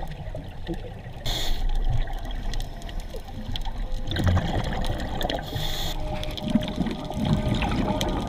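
Muffled underwater sound of a scuba diver breathing through a regulator. A short hiss of inhalation comes about a second in and again a little past halfway, each followed by a low gurgling rush of exhaled bubbles.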